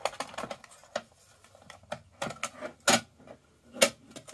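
Sharp clicks and light metallic knocks from the sheet-metal casing of a Dell 48x IDE CD-ROM drive as it is handled and pressed back together. The loudest knocks come about three seconds in and again a second later.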